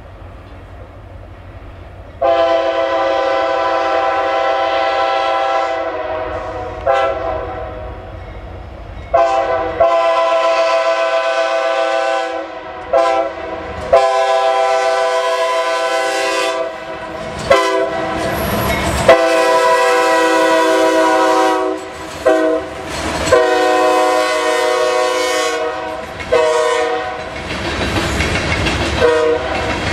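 CSX diesel locomotive's air horn sounding its grade-crossing signal: a chord of several tones in a series of long blasts with short ones in between, starting about two seconds in after a faint rumble of the approaching train. Near the end the noisy rumble of wheels on the rails comes up as the train passes.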